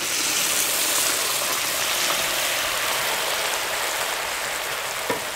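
Broth poured into a hot kazan of fried onions and paprika spice to deglaze it, giving a loud rushing hiss that starts abruptly and slowly eases. There is a brief knock near the end.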